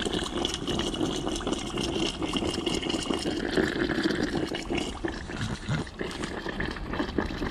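Peanut oil bubbling and sizzling around a whole duck deep-frying in a pot, a steady dense crackle of small pops.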